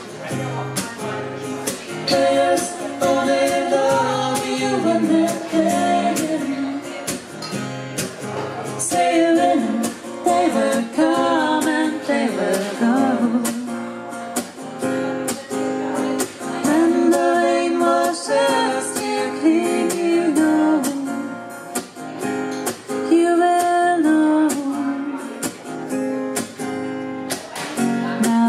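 Live duo performance: a woman singing a melody into a microphone over a strummed guitar.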